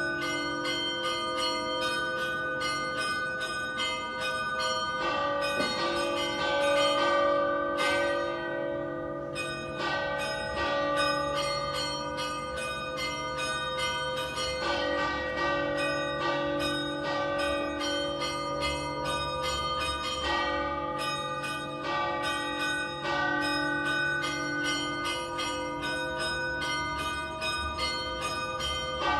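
Festive ringing of a three-bell tower set: a large bell in D-flat cast in 1878 by Pasquale Mazzola and two smaller bells cast in 2015 by De Poli, not tuned to a scale. The strikes follow one another in quick succession over continuous, overlapping ringing.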